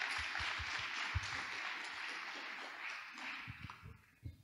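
Audience applause that dies away near the end, with a few soft low thumps underneath.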